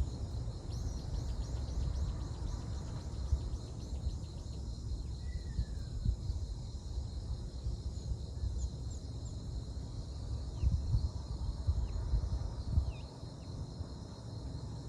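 Outdoor ambience of a steady insect chorus with a continuous high trill, fast pulsing in the first few seconds, and scattered short bird chirps, over a low, uneven rumble.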